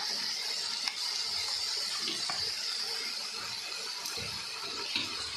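Chicken and vegetable stir-fry sizzling steadily in a hot wok, the soy and chilli sauces just poured in, with a couple of light clicks from the wooden spatula.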